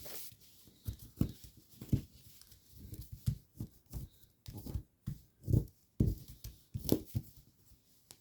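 A sheet of origami paper being worked by hand through a petal fold: a run of irregular crinkles, creases and soft taps.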